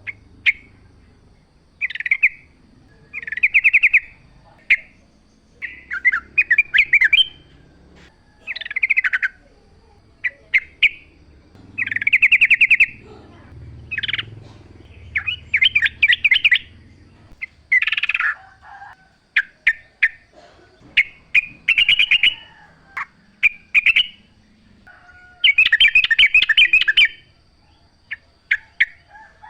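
Sooty-headed bulbul singing hard, in short loud phrases of rapid, trilling notes repeated every second or two.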